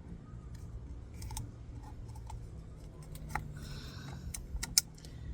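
Scattered small clicks and taps from handling the plastic oil filter housing while a new rubber O-ring is worked into its groove, with one sharper click near the end, over a steady low hum.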